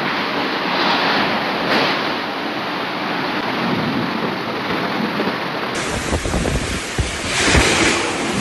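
Torrential rain and strong gusting wind, a dense steady hiss. About six seconds in the sound changes to heavy wind buffeting the microphone in low rumbling gusts.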